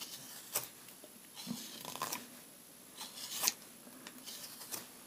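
Homemade hook knife (spoon-carving knife) slicing into wood: a handful of short, faint scraping cuts, the strongest about three and a half seconds in.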